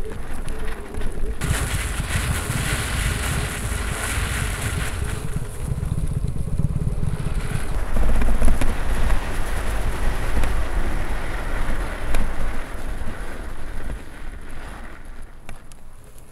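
Electric trike with three hub motors riding fast over packed snow: wind buffeting the microphone and tyre noise on the snow, with no engine sound. The rushing noise is strongest in the first half and eases near the end.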